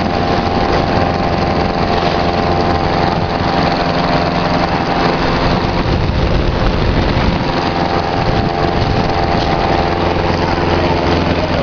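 Ultralight trike's engine running steadily at an even speed, with no rise or fall in pitch.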